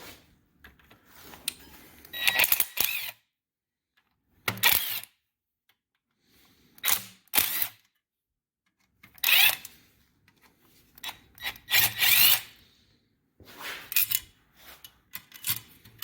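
Hand and power tools working on a small-block V8 engine during teardown: a series of short bursts of clicking and mechanical tool noise, with silent gaps between them.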